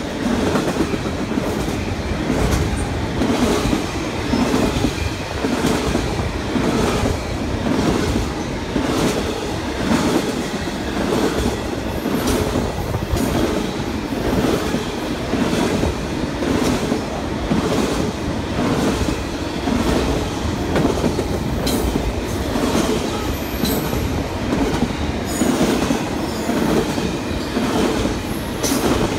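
Double-stack container freight train rolling past at close range: a steady rumble of wheels and cars with repeated clacking as the wheels cross rail joints.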